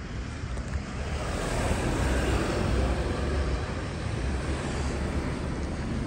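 Road traffic passing close by: tyre and engine noise of a car swells to its loudest about two to three seconds in, then eases, over a low rumble of wind on the microphone.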